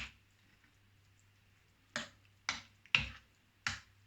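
A utensil knocking against a bowl as an egg mixture is stirred: one sharp click at the start, then four more irregular clicks from about two seconds in.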